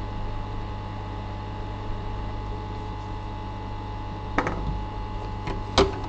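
Steady electrical hum on a repair bench, with two short clicks, one about four and a half seconds in and a sharper one near the end.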